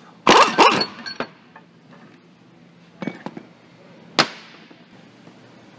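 Steel ball joint press parts clanking and clinking against a metal workbench as the adapter cups are handled: a loud ringing clatter just after the start, a few light clinks around three seconds, and a sharp clank with a ringing tail a little past four seconds.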